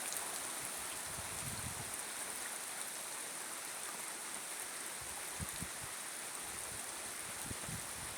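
Steady rain falling in woodland, an even hiss, with a few faint low bumps.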